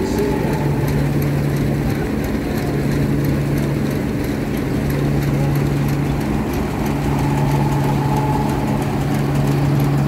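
Portable steam engine running, its flywheel driving a long flat belt to a threshing machine: a steady mechanical hum with faint, regular ticking over it.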